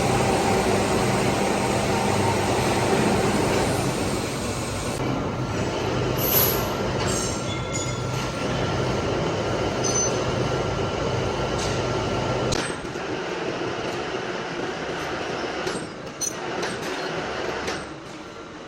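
Metal lathe running steadily, with a low hum and a thin high whine, and light metallic clinks. The machine noise drops about two-thirds of the way through, leaving quieter clinks and knocks.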